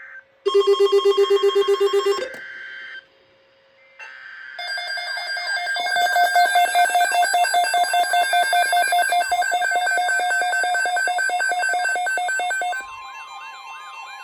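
Electronic emergency alert tones. About half a second in comes a loud, rapidly pulsing beep of about two seconds. After a short gap, a long, loud, rapidly pulsing ringing tone runs for about eight seconds, then gives way near the end to a fainter tone with repeated pitch sweeps.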